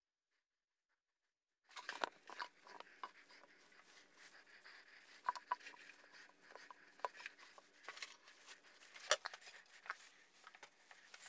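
Faint rustling of a cloth rag rubbed over hands, with scattered light clicks and taps of handling, starting about two seconds in.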